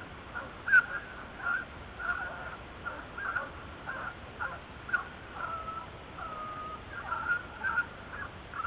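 A pack of beagles baying, many short calls overlapping in quick, irregular succession with a few longer held notes: hounds giving tongue as they run a rabbit's scent.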